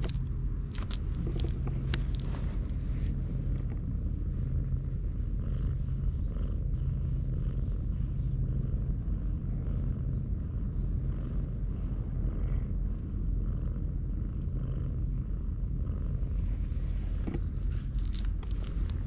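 Siamese cat purring steadily, a low hum that swells and eases in cycles of a second or two. A few sharp clicks come near the start and near the end.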